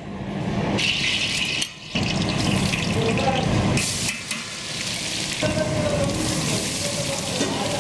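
Hot oil sizzling in a large metal cooking pot as spices fry for a tempering, with a long metal spatula stirring and scraping; chopped red onions go into the oil near the end. The sizzle breaks off briefly about two seconds in.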